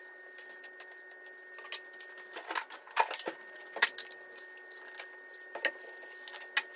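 Scattered light clicks, taps and clinks of tableware and fried food being handled and set out on a table, over a faint steady high-pitched hum.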